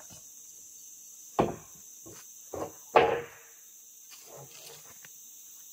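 Hard wooden knocks, as of ulin ironwood pieces being handled and set down: two about a second and a half in and a second and a half further on, then the loudest just after, with a short ringing tail. Two fainter knocks follow.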